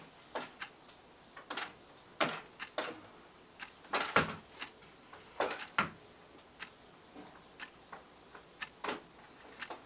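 Irregular clicks and knocks of a PVC window sash being handled and fitted onto its bottom hinge pin, with a few louder knocks scattered through.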